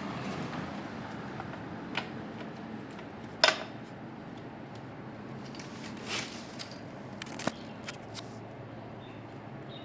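Scattered sharp clicks and knocks of small metal parts and tools being handled during repair work, over a steady low hum. The loudest knock comes about three and a half seconds in.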